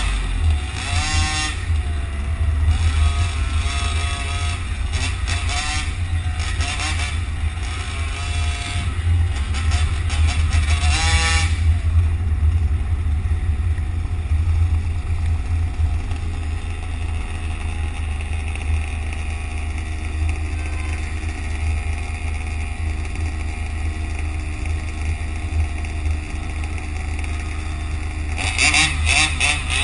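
Radio-controlled car driving on a road among traffic: a constant low rumble, with a motor whine rising and falling in pitch through roughly the first eleven seconds, then steadier running, and a louder noisy surge near the end.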